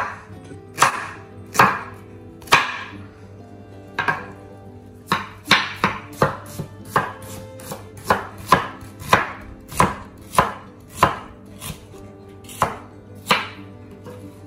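Kitchen knife chopping a red onion on a wooden cutting board: sharp knocks of the blade against the board, a few about a second apart, then quicker at about three a second from roughly five seconds in.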